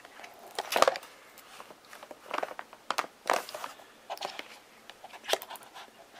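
Handling a smartphone and its cardboard box: irregular clicks, taps and short rustling scrapes as the phone is lifted and turned in the hands. The loudest click comes about a second in.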